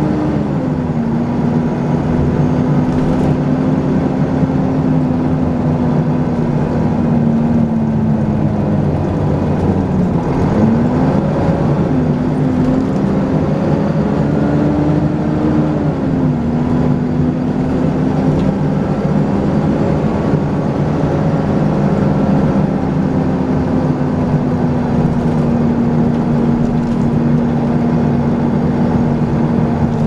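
Volvo B10BLE bus's six-cylinder diesel engine and ZF automatic gearbox running under way, heard from inside the saloon. The steady engine note falls about a second in, dips and rises again around ten to twelve seconds in, and falls again around sixteen seconds in as the bus changes speed.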